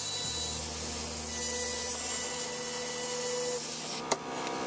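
Angle grinder with a diamond blade cutting a white ceramic wall tile along a curved line: a steady, loud grinding hiss over the motor's whine. About four seconds in the cut eases off, with a sharp click.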